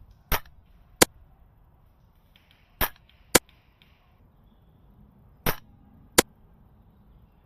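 Airsoft gunfire: six sharp cracks in three pairs, each pair about half a second apart, the pairs about two and a half seconds apart.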